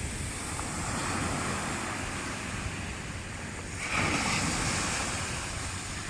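Sea waves washing onto the shore, with one louder wave surging in about four seconds in.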